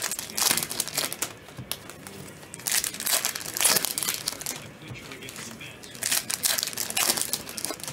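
Foil and plastic trading-card pack wrappers crinkling as they are handled and opened, in three scratchy bouts.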